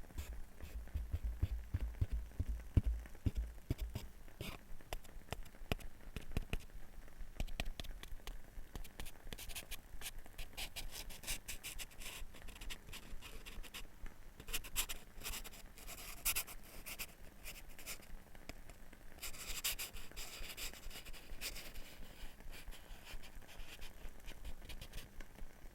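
Close-miked scratching and tapping on wooden objects: a run of quick small clicks and scrapes, with low knocks in the first few seconds and a denser stretch of scraping about 19 seconds in.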